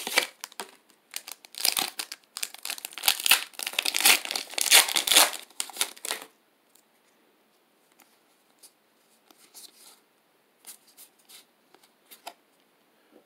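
Foil wrapper of a Pokémon trading-card booster pack crinkling and tearing as it is ripped open, for about six seconds. After that only faint soft clicks and rustles as the cards are handled.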